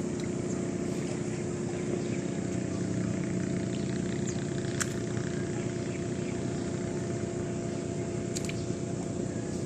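An engine running steadily at a constant speed, with a couple of faint clicks about halfway through and near the end.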